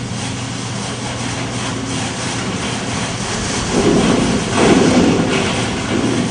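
Hydraulic test rig running as its actuator shakes a steel frame and pipe run in an earthquake simulation: a steady mechanical hum and noise, with two louder swells about four and five seconds in.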